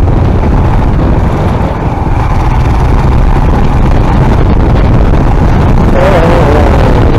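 Motorcycle running steadily along a road, with wind rumbling over the microphone.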